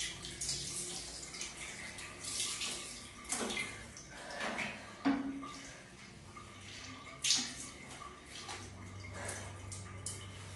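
Water poured from a dipper out of a plastic bucket, splashing over a person and onto a tiled bathroom floor in several separate pours, the sharpest splash about seven seconds in.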